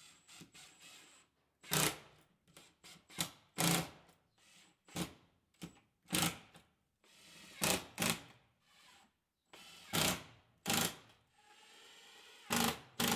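Cordless drill-driver driving screws in a dozen or so short bursts, each a brief motor whine with gaps between.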